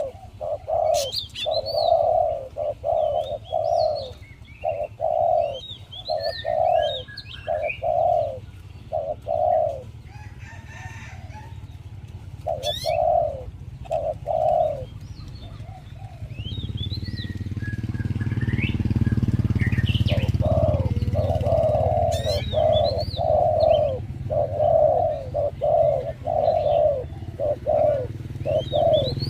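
Spotted dove cooing in quick repeated phrases, stopping for a few seconds in the middle and then resuming. Small birds chirp higher up, and a low steady rumble comes in just past halfway.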